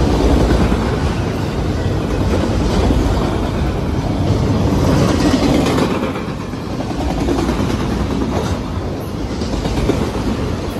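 Freight train rolling past: a steady, loud rumble of railcars on the track, with wheels clicking over rail joints.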